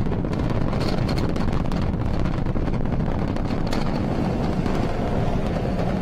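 Falcon 9 first stage's nine Merlin engines burning during ascent: a steady, loud, low rumble with a rough crackle.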